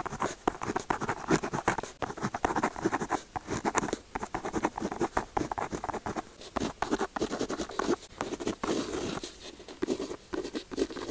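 Pen tip writing on paper: a quick, uneven run of short scratching strokes.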